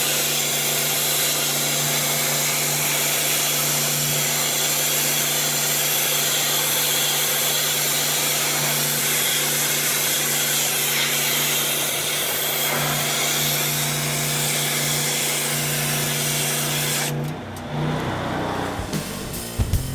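Wet sandblast nozzle on a high-pressure washer wand blasting a jet of water and sand onto sheet steel: a steady loud hiss over the even hum of the pressure washer running. It cuts off abruptly about three seconds before the end, giving way to music.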